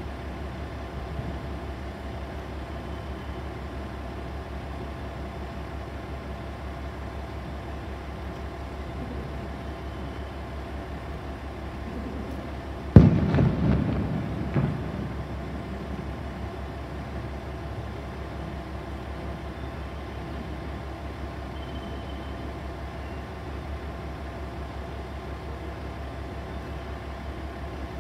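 KiHa 40 diesel railcar idling with a steady low rumble. About halfway through comes a sudden loud thump, then a smaller one a second and a half later.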